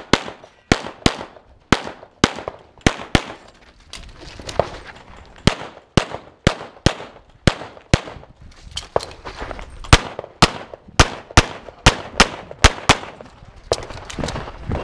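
Semi-automatic pistol shots fired in rapid succession, many in quick pairs a fraction of a second apart, with a brief lull about four seconds in: two shots on each paper target in a practical-shooting stage.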